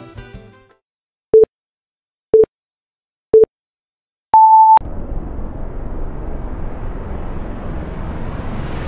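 Countdown-clock beeps: three short low beeps a second apart, then a longer, higher final beep. A rush of noise follows straight away and swells, growing brighter.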